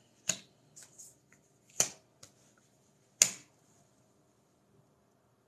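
Tarot cards being handled and set down on a table: three sharp slaps of card on the tabletop about a second and a half apart, with a few lighter card clicks between them.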